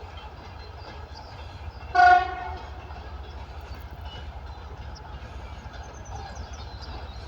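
TEP70 diesel locomotive with its train giving one short horn toot about two seconds in, over a steady low rumble of the moving train.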